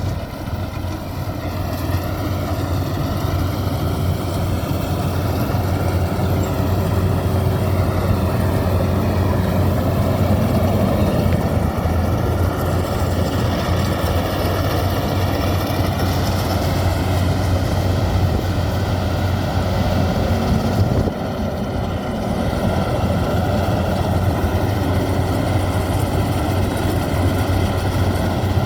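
Maxxi Bimo combine harvester running steadily with a continuous engine hum, easing briefly about twenty seconds in before picking up again.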